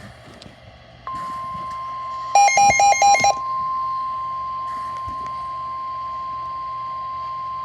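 Emergency Alert System warning tone: a steady, single-pitched electronic alarm tone comes on about a second in and holds, signalling a flash flood warning. Around the middle, five quick, harsh beeps sound over it and are louder than the tone.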